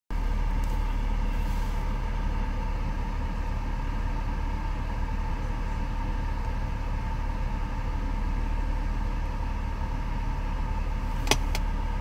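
Steady low hum with a constant droning tone inside a BMW E46's cabin, and two quick clicks of the radio unit's buttons being pressed near the end.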